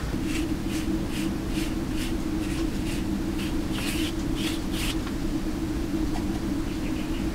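Rhythmic scraping strokes, about two and a half a second, stopping about five seconds in, over a steady low hum.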